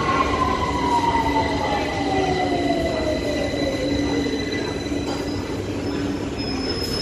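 London Underground Victoria line 2009 Stock train pulling into the platform and braking to a stop. Its motor whine falls steadily in pitch over about four seconds, over the rumble of the wheels and a steady high squeal. A short high tone sounds near the end as the train stands.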